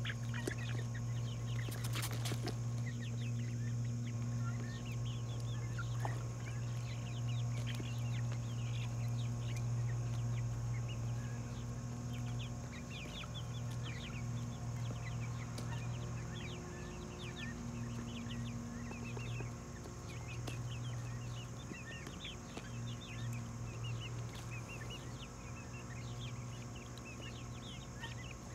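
Chickens clucking and cheeping in a pen, many short high chirps throughout, over a steady low hum. A single click about two seconds in.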